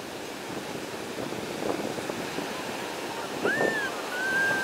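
Rough surf breaking on a sandy beach, with wind buffeting the microphone. In the last second or so a child's high voice calls out in one long held cry.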